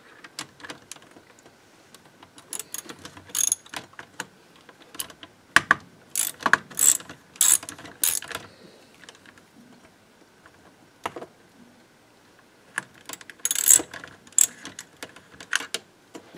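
Screwdriver working screws loose in the metal chassis of an old tube tape recorder: irregular bursts of sharp clicks and metal scraping, with a quiet spell of a few seconds past the middle.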